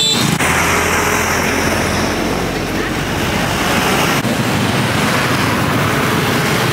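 Roadside market din: a steady wash of passing traffic with people's voices in the background.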